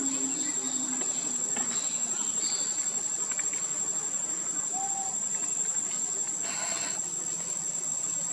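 Steady, high-pitched drone of insects calling.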